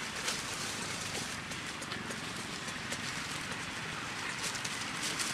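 Dry leaf litter crackling and rustling in many small irregular clicks as macaques scuffle over it, over a steady outdoor hiss.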